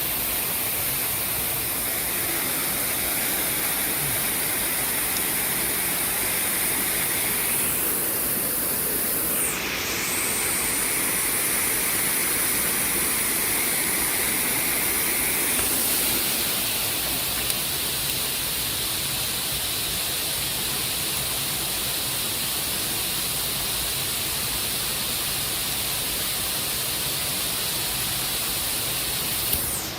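Flowing water rushing steadily, an even hiss with a slight shift in tone about ten seconds in.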